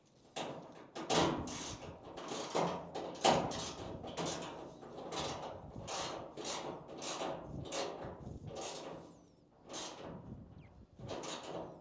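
Metal parts of a dryer being worked on during reassembly: a run of more than a dozen short rasping scrapes, one to two a second, with a short pause near the end.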